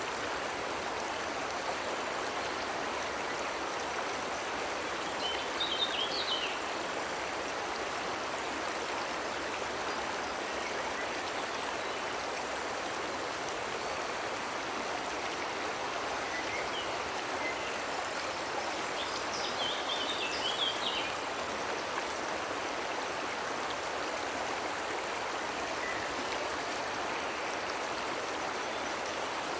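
Steady rush of a cascading waterfall, with short high bird chirps breaking in twice, about six seconds in and again about twenty seconds in.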